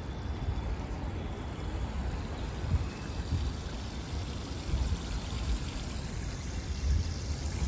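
Water running steadily down a ribbed stone cascade into a pool, an even rushing sound, with an uneven low rumble underneath.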